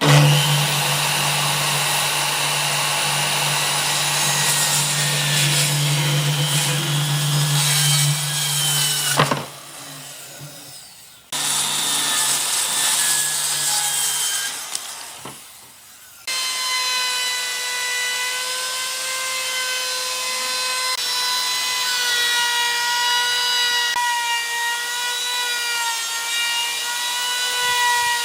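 Power tools working wood: a loud cutting run stops about nine seconds in, starts again a couple of seconds later, and about two-thirds of the way through gives way to a steady high-pitched whine.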